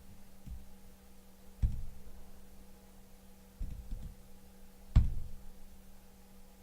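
A few dull knocks and bumps, the loudest and sharpest about five seconds in, over a steady low electrical hum.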